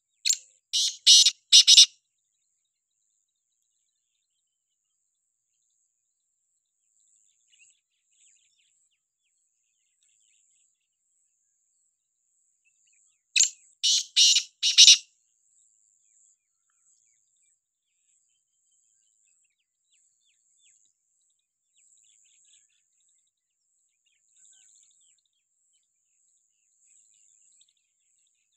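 Caged black francolin calling: a loud, harsh burst of about five sharp, high-pitched notes right at the start, and a second burst of about five notes about halfway through. A faint high hiss runs between the calls.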